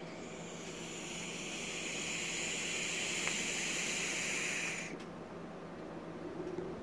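Vape draw on a Mutation X V2 dripper atomizer with a twisted 24-gauge Kanthal single coil firing at about 50 watts: a steady hiss of the coil vaporizing e-liquid and air pulled through the open airflow hole. It builds slightly and cuts off sharply about five seconds in, when the fire button is released.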